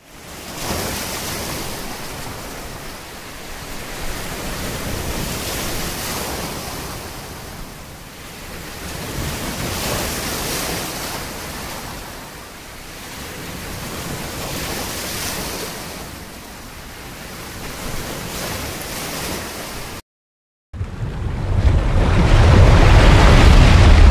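Sea waves washing, with wind, swelling and fading every four or five seconds. About twenty seconds in the sound cuts out briefly, then returns louder with a heavy low rumble.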